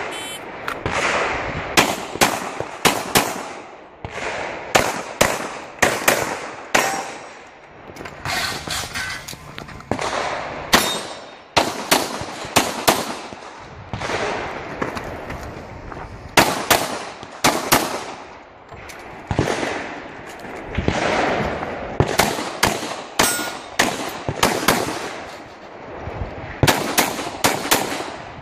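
Glock 35 pistol firing .40 S&W rounds through a practical-shooting stage: sharp shots in quick pairs and short strings, broken by pauses of a second or more.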